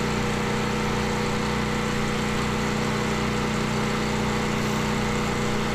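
A small engine running steadily at a constant speed, with a low, even hum.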